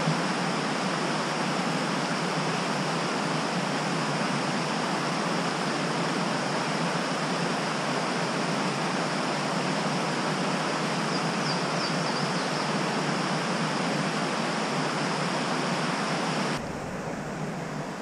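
Creek water rushing steadily at a waterfall, with a few faint high chirps about two-thirds of the way through. About a second and a half before the end the rushing drops abruptly to a quieter level.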